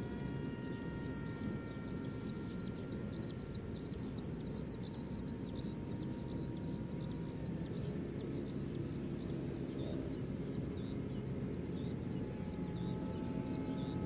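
RC model plane flying high overhead, its motor and propeller a faint whine that drifts slightly lower and fades about halfway through, then comes back near the end. Constant high chirping of birds and a low background rumble run beneath it.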